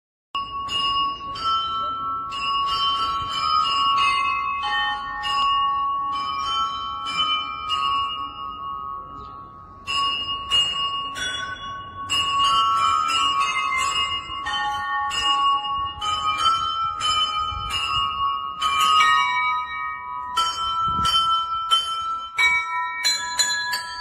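Church bells ringing from a tower set of many tuned bells: a pattern of struck notes, each ringing on after the strike. It eases into a short lull about nine seconds in, then starts again and grows quicker and busier near the end.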